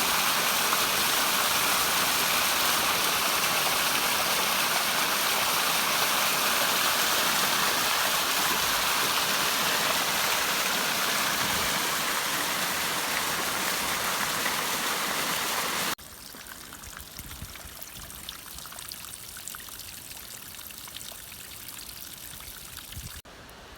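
Rushing water from a farm dam's overflow pipe carrying a strong flood flow, a steady loud roar of water. About 16 s in it cuts abruptly to a quieter, steady sound of running water.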